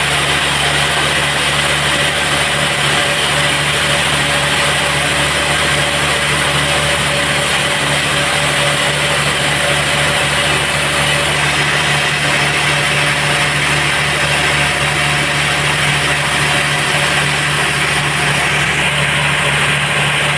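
Sawmill bandsaw machinery running steadily with a constant hum.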